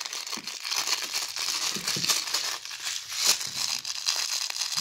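German Shepherd puppy chewing and tugging at a plush bat chew toy: a continuous rustling of the fabric with small irregular clicks and snaps.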